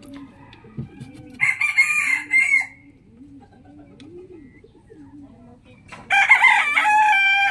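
Rooster crowing twice: one crow about a second and a half in lasting about a second, and a second crow beginning about six seconds in and held to the end. Softer, low chicken clucking goes on underneath.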